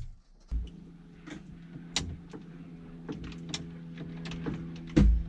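A small electric motor runs with a steady hum, starting about half a second in, with scattered clicks and knocks of handling over it and a loud knock near the end.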